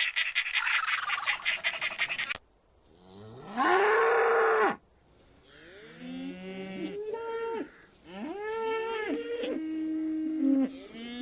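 A rapid pulsing animal call cuts off with a click, then cattle moo: one loud moo that rises in pitch and holds, followed by several more moos at different pitches, some overlapping.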